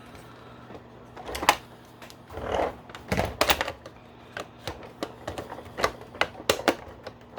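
Irregular clicks and taps of hard plastic toy parts being handled and snapped together on a G.I. Joe Bugg toy vehicle, with a sharp click about one and a half seconds in and a quick run of clicks from about three seconds on.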